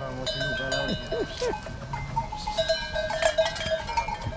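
Bells on a flock of sheep clanking and ringing irregularly as the flock moves. A couple of short bleats come about a second in.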